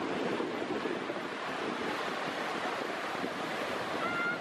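Steady wash of sea surf with wind buffeting the microphone. A short high tone sounds briefly near the end.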